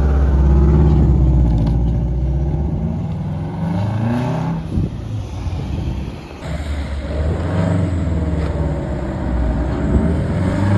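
Subaru Impreza WRX ProDrive GB270's turbocharged flat-four engine on the move, revs climbing and then dropping at gear changes, twice.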